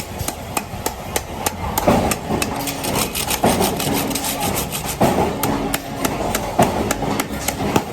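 A 13-blade ice-block cutting machine working through ice: continuous scraping and crunching with a rapid run of sharp clicks and a few short hums.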